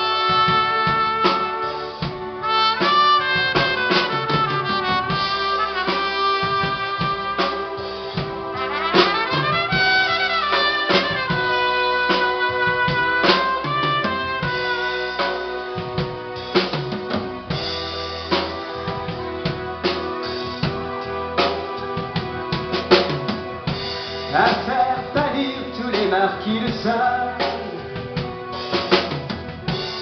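Live band music: a trumpet playing the melody over a drum kit, in an instrumental introduction before the vocals come in.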